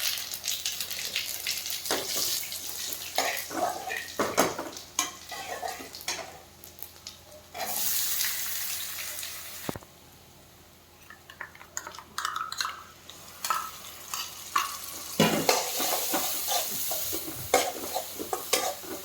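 Metal spatula stirring and scraping food frying in a pan, with clinks against the pan and a sizzle. The scraping pauses briefly about half way, then starts again more busily.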